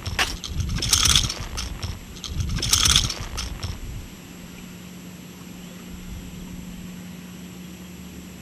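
A hooked bass shaking on the line as it is swung aboard, its lure and hooks rattling and jangling in three short bursts over the first three seconds. After that only a steady low hum remains.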